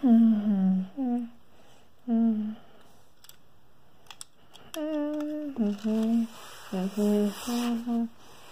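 A child humming a tune in short held notes, with pauses between phrases.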